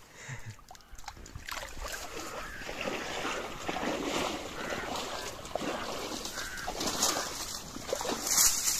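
Dry reeds rustling and crackling, with splashing, as someone moves and wades through a shallow reed bed; it builds up after the first second or so.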